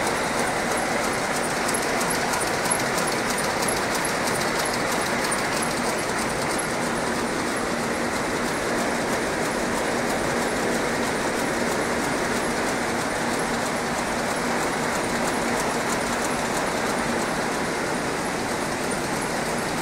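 910SK II terry towel rapier loom running at speed: a steady, fast mechanical clatter of the reed beating up and the rapiers inserting the weft.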